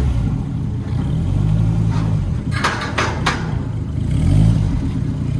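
2013 Dodge Viper SRT's V10 engine running, its pitch swelling up twice in short revs. A few sharp clattering noises come in around the middle.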